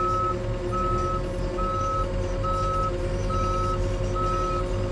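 Skid steer engine running steadily while its backup alarm beeps at an even pace, a little more than once a second: the machine is reversing.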